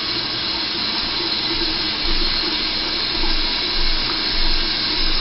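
A steady hiss, with a faint low rumble joining about two seconds in.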